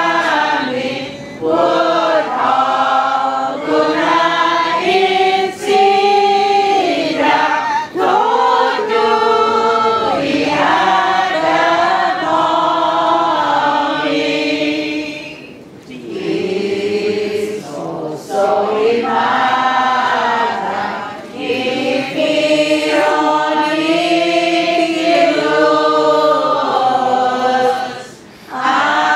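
A group of voices singing a hymn together during Mass, in long held phrases with short pauses between them.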